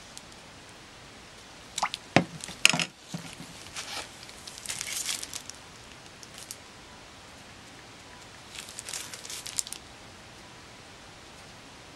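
A metal ladle knocking sharply against a pot a few times about two seconds in, then scraping and liquid sloshing as milk gelatin is ladled out, with another short run of scraping clinks near the end.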